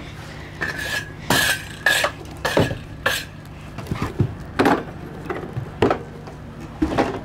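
Metal muck shovel scraping and knocking on the horse trailer's floor and ramp in a run of short strokes, about two a second, many with a brief metallic ring, as pony droppings are scooped into a plastic muck bucket.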